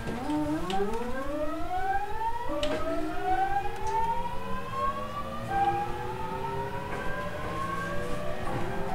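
GTO-thyristor VVVF inverter and traction motors of a 209 series 3000 subseries train whining as it pulls away from a stop. Several tones rise together in pitch, with sudden changes in the tone pattern about two and a half and five and a half seconds in as the inverter shifts its switching mode. A few light clicks sound over it.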